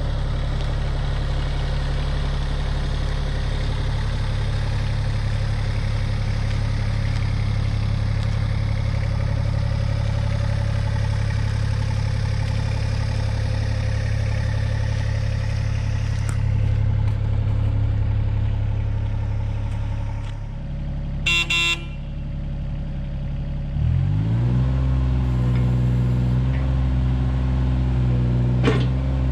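John Deere 26G mini excavator's diesel engine running steadily. About two-thirds of the way through there is a short beep, and a few seconds later the engine is throttled up, its pitch rising to a higher steady speed.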